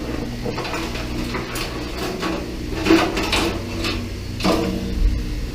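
Clicks, knocks and scrapes of a PC case's plastic and metal parts being handled, over a low steady hum.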